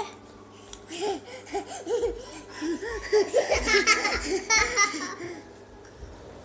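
A toddler giggling: a run of short, high-pitched laughs starting about a second in and fading out about five seconds in.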